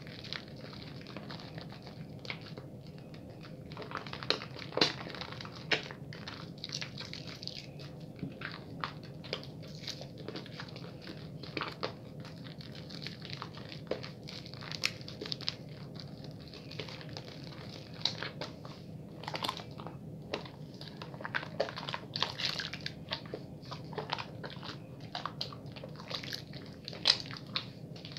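A bar of soap being rubbed briskly into a lather: irregular crackling and crunching with frequent sharp clicks, over a steady low hum.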